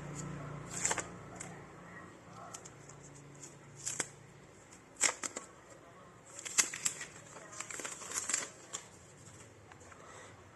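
Handling noise while unpacking a smartphone: scattered rustles, taps and clicks of packaging and the handset, busiest in a cluster from about six and a half to eight and a half seconds in.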